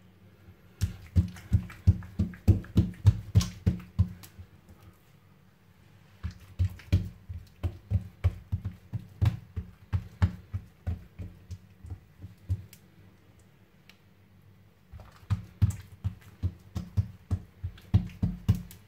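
Hands patting and slapping a thin, oiled sheet of msemen dough against a wooden board while spreading and folding it. The pats come in three runs of quick soft thumps, about three or four a second, with short pauses between.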